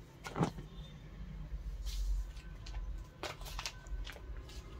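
Clear plastic garment packaging crinkling and rustling as packed nighties are handled, a few brief crackles over a low steady hum.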